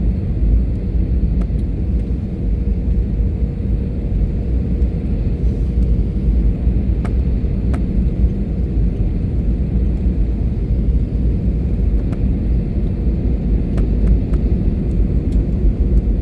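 Steady low rumble of an airliner's engines and airflow, heard from inside the passenger cabin during the landing approach, with a faint steady hum and a few faint clicks.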